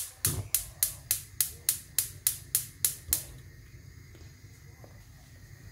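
Gas hob burner's spark igniter clicking rapidly, about a dozen clicks at three to four a second, until the burner lights about three seconds in. The lit gas flame then gives a faint steady hiss.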